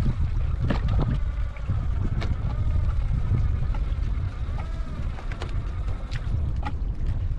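Wind buffeting the microphone as a low, fluctuating rumble, with small splashes and knocks of water against a kayak hull. A faint rising-and-falling whine comes and goes near the middle.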